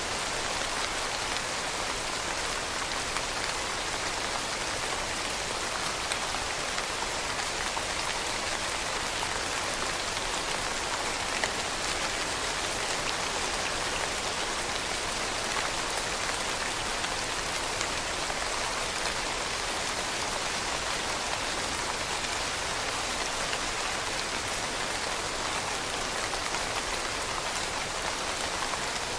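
Steady rain falling on leaves, a dense even hiss of many drops with occasional faint separate drop ticks.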